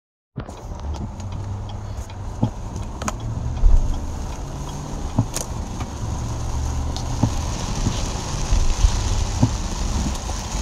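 Heavy rain pelting a car's windshield and roof, heard from inside the cabin: a steady hiss with scattered sharp ticks of drops over the car's low rumble, while the windshield wipers sweep.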